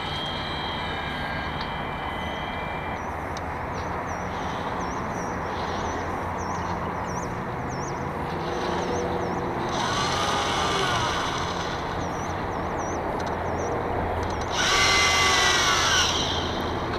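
Sail winch servo of an IOM radio-controlled yacht whirring in two spells, a short one about ten seconds in and a longer, louder one near the end as the sails are let out, over a steady low background noise.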